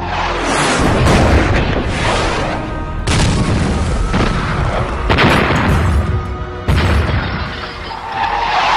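A string of heavy explosions from war-film footage, each starting suddenly: at the start, about three seconds in, about five seconds in and near seven seconds. Background music plays under the blasts.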